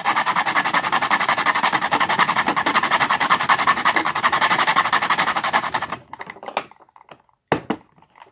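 Rapid back-and-forth scraping of tinder over the metal teeth of a handheld kitchen grater, many strokes a second, shaving it into the grater's storage box to make fire-starting tinder. The scraping stops suddenly about six seconds in, and a single knock follows.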